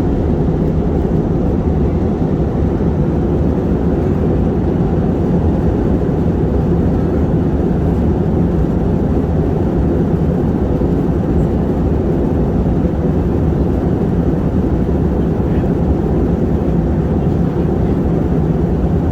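Airliner cabin noise in flight: a steady low drone of engines and airflow, heard from inside the passenger cabin, unchanging throughout.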